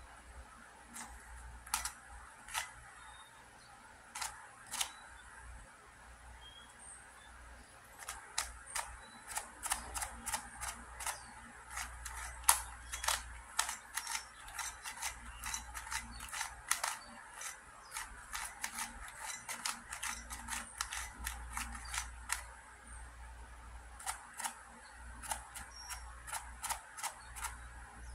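Plastic layers of a QiYi 2x2x3 cuboid puzzle clicking and clacking as they are turned by hand. A few scattered turns at first, then a fast run of many turns for about fifteen seconds, then slower again near the end.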